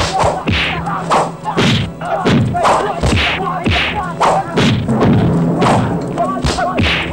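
Dubbed martial-arts fight sound effects: a rapid series of heavy punch and kick thuds, about two a second, mixed with the fighters' grunts and shouts.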